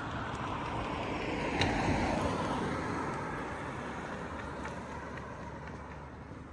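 A car passing on the street, rising to its loudest about two seconds in and then slowly fading away.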